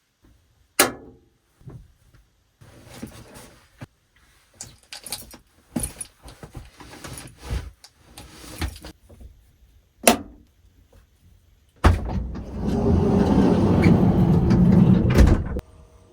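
Sharp clunks and scattered rustling of someone moving about inside a camper van, with two loud knocks about nine seconds apart, then a loud rushing noise for about three and a half seconds that cuts off suddenly.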